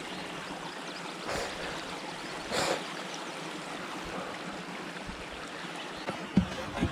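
Running water trickling steadily, with two brief louder swishes a second or two in and a couple of short low knocks near the end.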